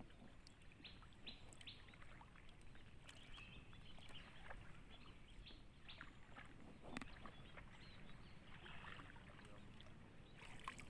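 Near silence: faint outdoor background with a few faint, short high chirps and light ticks scattered through it.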